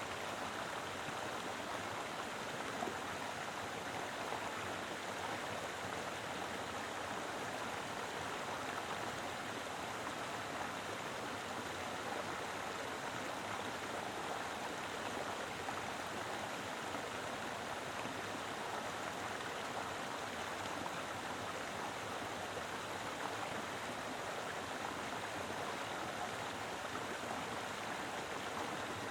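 Mountain river flowing, a steady full rush of water over rocks.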